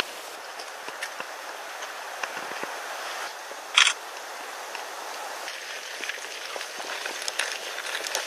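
Outdoor ambience: a steady hiss with scattered small clicks and crackles, and one short sharp sound about four seconds in.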